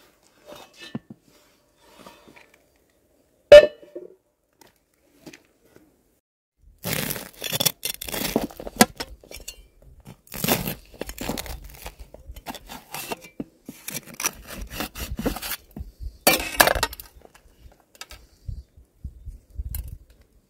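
A single sharp metallic clink with a short ring about three and a half seconds in. From about seven seconds, a long stretch of scraping and crunching as a flat metal scraper cuts through the crusty crust of a round baked loaf against a steel tray, with quieter crumbling near the end as the bread is broken open by hand.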